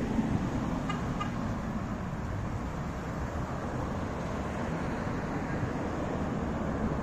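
Steady road traffic noise from cars driving along a multi-lane street: engine hum and tyre noise.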